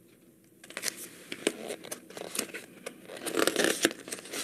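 Paper pages of a picture book rustling and crinkling as a page is handled and turned, with a run of small clicks and crackles.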